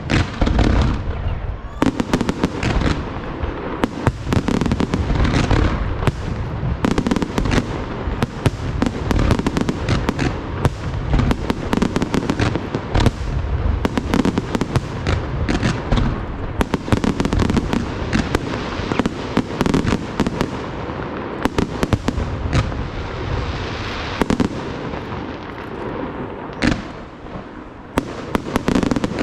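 Professional fireworks display firing a dense, unbroken barrage: many overlapping bangs and deep booms of bursting shells, with crackling between them.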